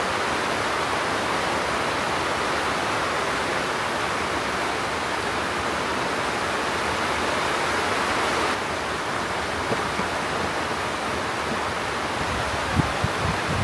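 Steady rushing water, dropping a little in level about eight and a half seconds in, with a few light knocks near the end.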